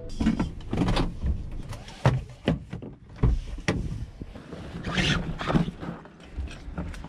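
Rustling, clicks and several sharp clunks of someone moving about inside a parked Honda N-VAN and getting out of it, with door and interior trim sounds.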